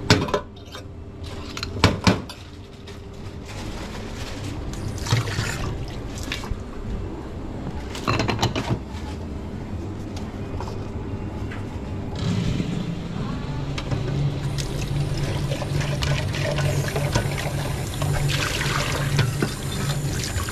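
Espresso machine making a cappuccino: a couple of sharp knocks near the start, then from about twelve seconds in a steady low hum with liquid running.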